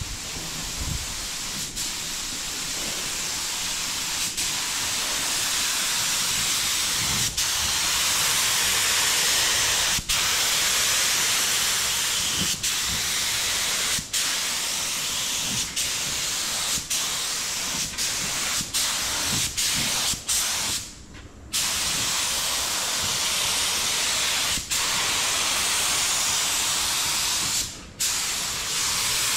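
Gravity-feed paint spray gun hissing as it sprays paint onto the truck's bodywork. The steady hiss is broken by many brief pauses, with one longer gap about 21 seconds in.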